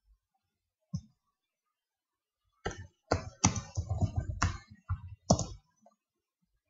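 Typing on a computer keyboard: a single keystroke about a second in, then a quick run of keystrokes lasting about three seconds.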